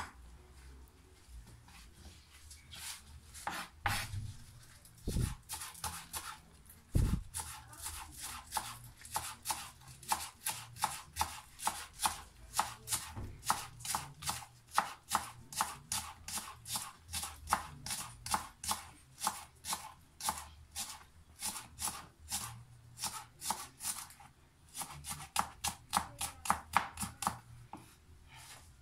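Kitchen knife chopping spring onions on a plastic cutting board: a steady run of sharp knife strikes, about three to four a second, with a short pause near the end. Two dull thumps come about five and seven seconds in.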